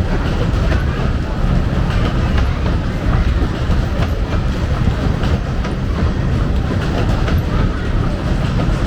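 A fairground ride running with passengers aboard: a steady heavy rumble with a rattling clatter of many quick clicks.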